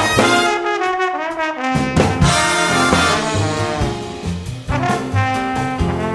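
Background music: a jazzy brass tune, with horns such as trombone and trumpet carrying the melody over drums.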